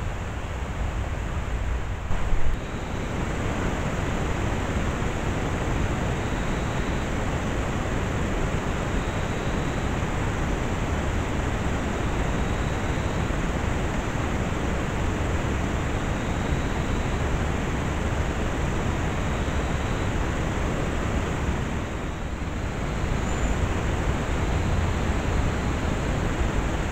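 Steady hiss of a trail camera's recording, an even noise with no clear source, broken by a brief loud click about two seconds in. Faint short high tones recur every couple of seconds under the hiss.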